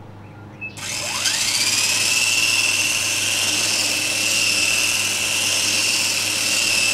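Small radio-controlled model helicopter on a test stand spinning up: its motor and rotors start about a second in with a quickly rising whine, then run at a steady high whine.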